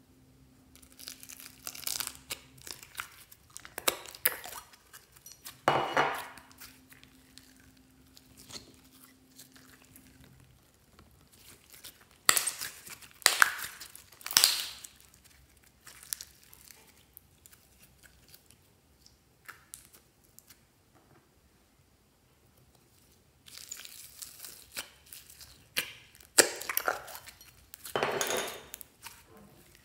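Slime being squeezed and stretched by hand, including a lump of yellow fluffy slime: sticky crackling, popping and squishing in several bursts with quiet pauses between them.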